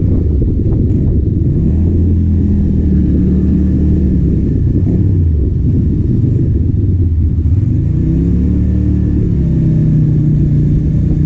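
Keeway V250fi cruiser's 250cc V-twin engine running under way. The note rises as it accelerates about two seconds in, drops back around five seconds, and climbs again near eight seconds before easing off, over a steady low rumble.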